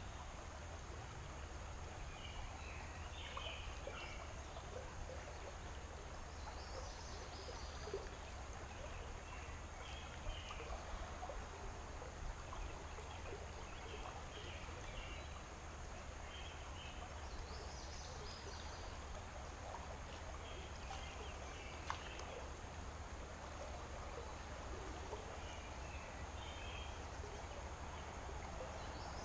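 Outdoor river ambience: a steady wash of flowing water with small birds chirping in short phrases every couple of seconds. There are a few faint sharp clicks.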